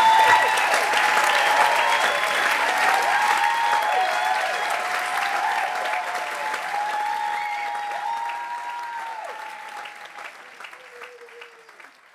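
Audience applauding, fading out steadily.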